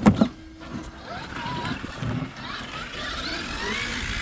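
A short knock, then the electric motor and drivetrain of a 1/6-scale Axial SCX6 Honcho RC crawler whining under throttle. The whine climbs in pitch in several slow glides.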